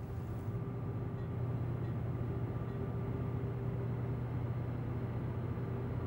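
Tugboat's diesel engine running steadily: a constant low drone with a strong hum and fainter higher tones, coming in about half a second in.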